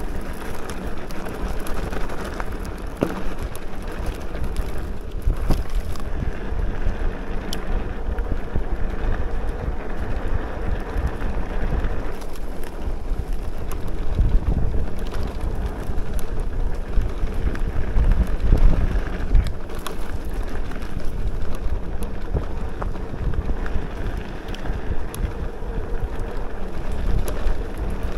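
Wind buffeting the action camera's microphone over the rolling noise of e-mountain-bike tyres on a rough country track, with many small knocks and rattles from the bike.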